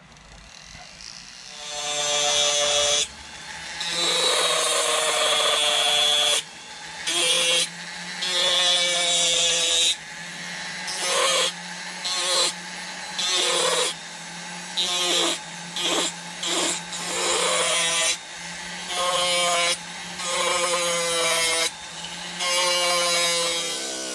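Rotary carving tool with a burr grinding wood in about a dozen short passes. A steady motor hum runs underneath, and each time the bit bites, a loud, harsh grinding comes in and the tool's whine drops slightly in pitch.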